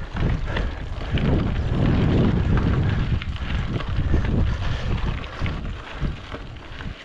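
Wind buffeting the microphone of a camera on a mountain bike in motion, a heavy gusting rumble, with scattered clicks and rattles from the bike over the ground.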